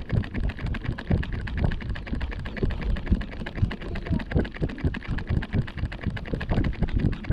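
Walking noise picked up by a handheld 360 camera: wind rumbling unevenly on the microphone, over a rapid patter of small clicks and footsteps on a paved path.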